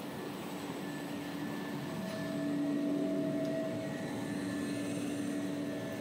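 Automatic maxi roll paper band saw cutting machine running: a steady mechanical hum with two droning tones that swell louder about two to three seconds in, then settle.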